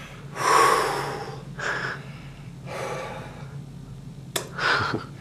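A man breathing hard after the effort of closing a #3.5 Captains of Crush hand gripper, with four heavy, gasping exhales about a second apart and a sharp click about four seconds in.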